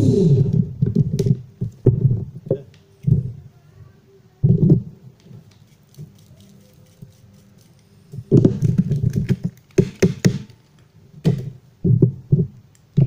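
Irregular knocks, taps and clatters of a metal tool and hands working at the sensor ring in a Volvo electronic throttle module housing, coming in short clusters with quiet gaps.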